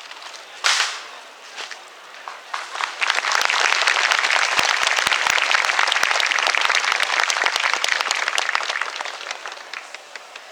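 A single sharp crack under a second in, then a crowd applauding: the clapping swells in about three seconds in, holds, and fades away near the end.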